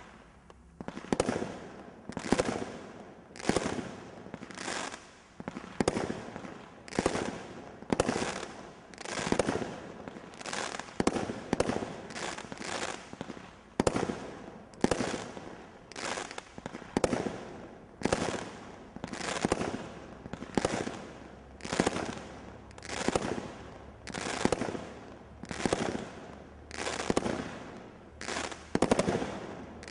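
Brothers Pyrotechnics 'Blazing Star' 24-shot roman candle barrage cake firing shot after shot, about two dozen loud bangs at a steady pace of roughly one a second, each tailing off briefly before the next.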